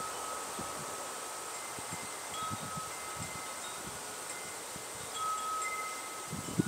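Wind chimes ringing, several overlapping notes that each sound and fade, with a few dull low thumps.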